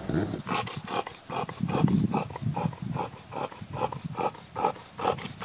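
A dog's rhythmic panting huffs, about two or three a second, making a burbling "brap brap" sound like an idling rotary engine.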